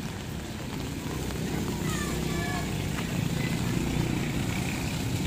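Low street rumble of motor traffic on a wet road, growing louder about a second in. A few brief high chirps come about two seconds in.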